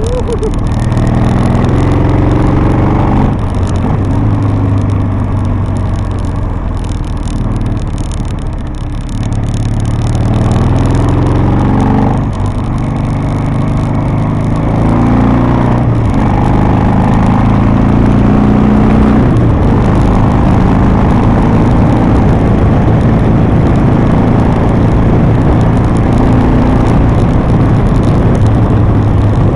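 Harley-Davidson V-twin engine running under way, its pitch dipping as the rider eases off about a third of the way in, then climbing and shifting again as he accelerates through the bends. Wind noise rushes over the microphone throughout.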